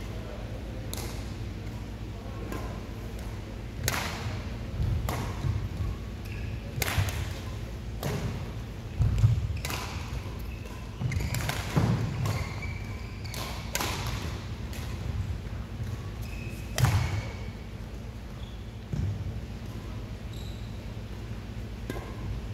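Badminton rally: sharp cracks of rackets striking the shuttlecock, back and forth about once a second or two, with heavy thuds of players' feet landing and lunging on the court, the loudest about nine and twelve seconds in.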